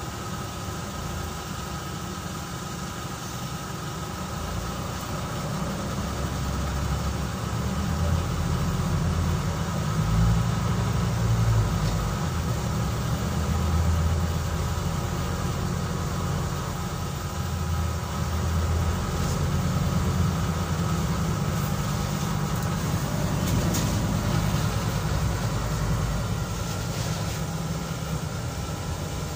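Scania CN270UB city bus driving, heard from inside the passenger cabin: a low engine and drivetrain rumble that swells and eases as the bus pulls along. A few brief clicks come through in the last third.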